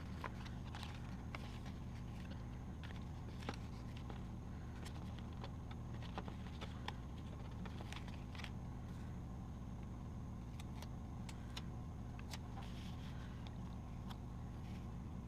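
Sticker sheets and paper being handled, with scattered small clicks and rustles over a steady low hum.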